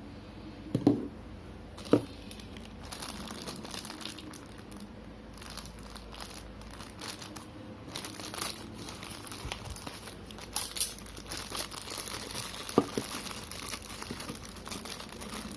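Plastic packaging crinkling and rustling as it is handled and opened, busier in the second half. A few sharp knocks stand out, two about one and two seconds in and one near the end.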